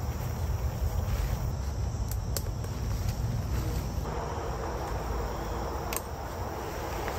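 Bivy tent fabric rustling and a few sharp clicks as the tent and its pole are raised and shaped, louder rustling from about halfway through, over a steady background of insects chirring.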